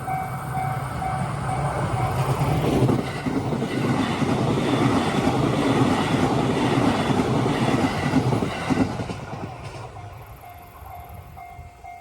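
Two electric trains, a 209 series commuter train and a deadheading Shiosai limited-express set, run past a level crossing at the same time. The wheel-and-rail noise builds, stays loud for several seconds and fades away after about ten seconds. The crossing's warning bell rings in a steady repeating ding at the start and comes back through near the end as the trains fade.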